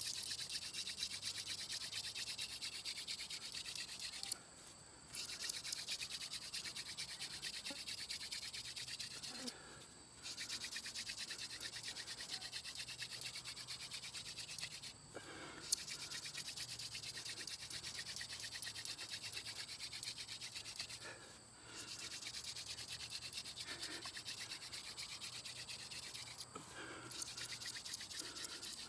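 Hand-drill friction fire: a wooden spindle spun back and forth between the palms, grinding into a wooden hearth board with a steady, scratchy rasp. The rasp breaks off briefly five times, about every five to six seconds, as the hands move back up the spindle.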